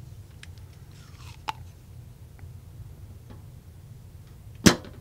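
Spring-loaded solder sucker (desoldering pump) firing with one sharp snap near the end, after a few faint small clicks, over a steady low hum.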